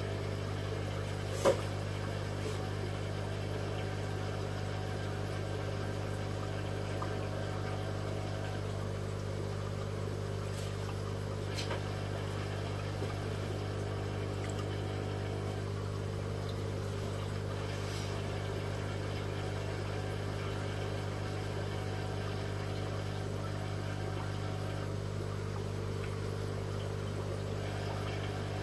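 Steady mains hum of an aquarium air pump driving the airline tubing and sponge filter, with one sharp knock about a second and a half in and a few faint ticks later.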